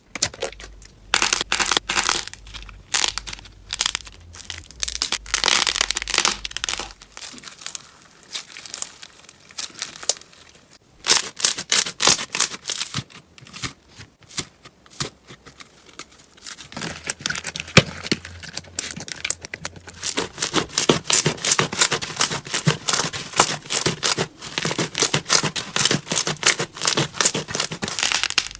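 Slime being squeezed and poked by hand, giving rapid, irregular crackling and popping clicks. There is a quieter stretch about a third of the way in.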